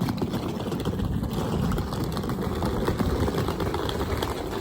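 Wind buffeting the microphone: a steady low rumble that starts abruptly and holds.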